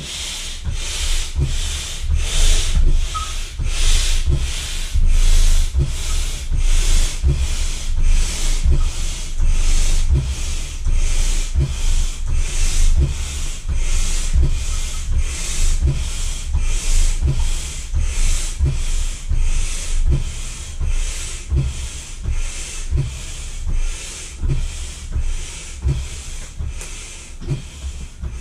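A manual air pump worked in steady strokes, about three every two seconds, each stroke a rush of air with a low thump, inflating an inflatable swim ring.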